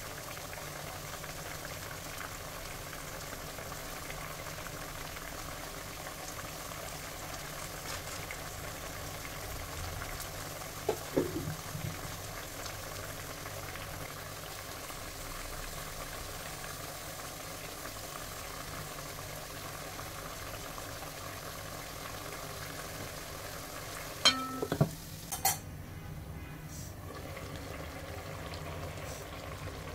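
Fish curry bubbling at a steady boil in a metal pan, a continuous bubbling hiss. A few short knocks break in about eleven seconds in, and a louder cluster of them comes near twenty-five seconds.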